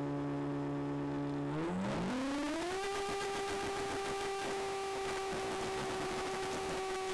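Motors of a radio-controlled A-10 Warthog model jet, heard from a camera on board. They run with a steady low whine, then spool up over about a second to a higher steady pitch as the model powers up for its takeoff roll.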